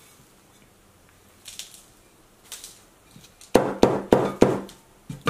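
Soft rustling of potting soil being scooped and dropped. About three and a half seconds in, a terracotta pot is knocked on the tabletop about five times in quick succession, about four sharp knocks a second, to settle the soil around the plant.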